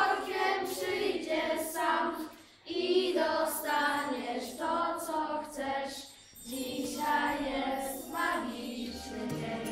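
A group of children singing a song together in Polish, without accompaniment, in phrases with short pauses between them. Right at the end a music track with a beat starts.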